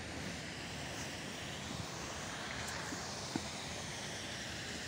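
Steady open-air background noise, an even hiss with no distinct events, and a single faint click a little past three seconds in.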